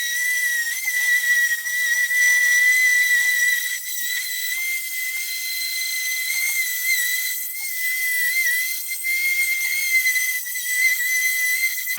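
Orbital sander running with 80-grit paper on the table saw's top: a steady high whine over a hiss.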